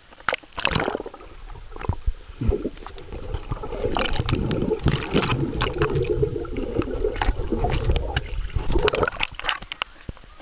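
Swimming-pool water heard through a camera at and under the surface: splashing as a swimmer goes in, then muffled gurgling and bubbling while the camera is under water, with many sharp little clicks throughout.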